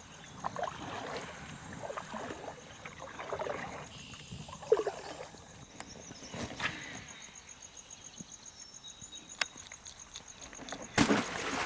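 Soft water sounds around a kayak on a calm marsh flat, with a faint steady insect buzz. Near the end comes a sudden loud splash: a fish striking at a topwater plug.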